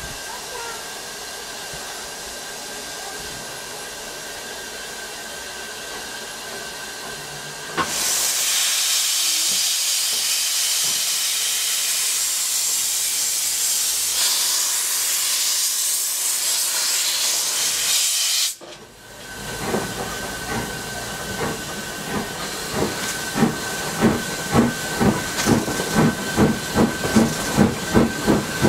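Bagnall saddle-tank steam locomotive: a steady hiss of steam, then about eight seconds in a loud rush of escaping steam that cuts off suddenly some ten seconds later. After a short lull the locomotive's exhaust beats begin, a rhythmic chuffing that grows louder and a little quicker near the end as it works the train.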